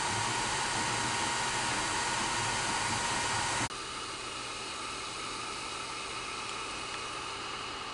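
Steady whir and hiss of an Ender 3 Pro 3D printer's cooling fans. A little past a third of the way in it drops abruptly to a quieter steady hiss.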